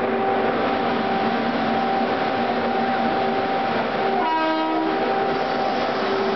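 WCAM3 electric locomotive's DC blowers running at full speed: a steady whine over a loud rush of air. A short train horn blast sounds about four seconds in.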